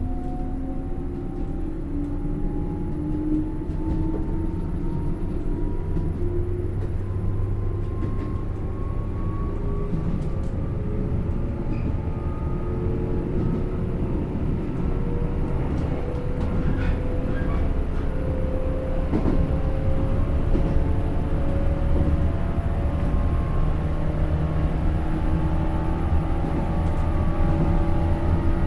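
JR 107 series resistance-controlled electric train running, heard from inside the car: a steady rumble with the traction motors' whine rising slowly in pitch as the train gathers speed.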